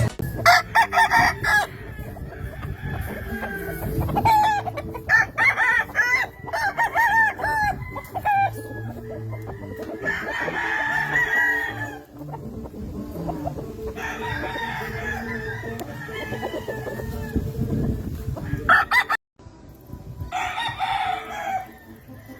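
Gamefowl roosters clucking in short arched calls, then crowing in long drawn-out calls, about three of them, with a brief dropout shortly before the last crow.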